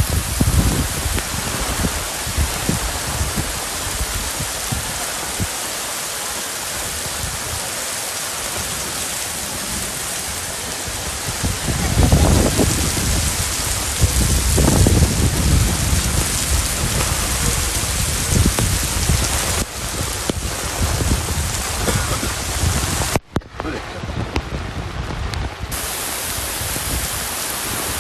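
Heavy rain falling steadily, a dense continuous hiss, with stretches of stronger low rumble around the middle and a brief drop in level a little after three quarters of the way through.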